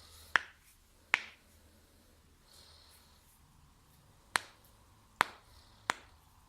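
Joints cracking: five sharp, loud pops, two close together near the start, then three more in quick succession after a pause of about three seconds.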